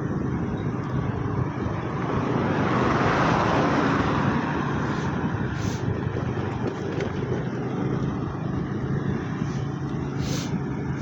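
Road traffic noise: a steady engine hum with a vehicle passing by about two to four seconds in, and two short hisses near the middle and near the end.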